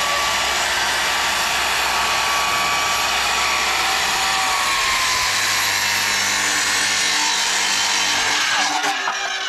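Makita HS0600 270 mm circular saw running under load as it cuts through a timber railway sleeper at full depth. This pass goes through without binding or kicking back. Near the end the saw is let off and begins to wind down, its pitch falling.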